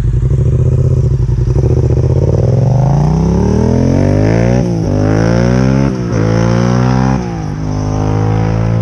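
Quad bike with a swapped-in Yamaha MT-07 689 cc parallel-twin engine idling, then revving and pulling away, rising in pitch through three upshifts as it rides off.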